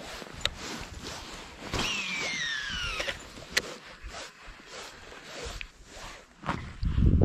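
Okuma Citrix baitcasting reel's spool spinning out on a cast, a whine falling steadily in pitch over about a second, among scattered clicks of the reel being handled. A loud low rumble comes in near the end.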